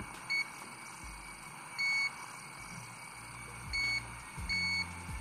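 HTC DM-83T digital multimeter's built-in buzzer beeping four times as the test probe tips are touched together, the beep of its continuity test. The beeps are short and high-pitched; the first is very brief and the last two come close together.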